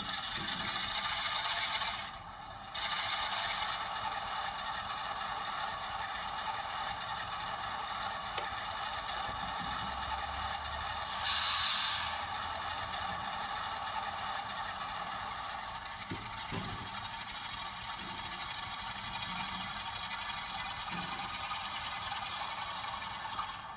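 A Hornby TTS sound decoder plays a Class 47 diesel locomotive's engine sound through a model train's small speaker. The sound is thin and tinny, with a steady running note. It dips briefly about two seconds in, and there is a short hiss about eleven seconds in.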